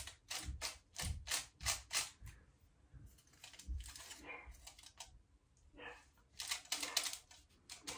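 Aluminium foil crinkling and crackling under a dye brush as highlighting dye is painted onto a strand of hair laid on the foil. It comes as runs of quick crisp clicks, one in the first couple of seconds and another about six to seven seconds in.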